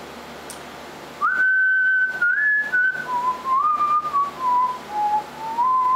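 A person whistling a simple tune in clear held notes. It starts about a second in, and after a few higher notes the melody steps down to lower ones.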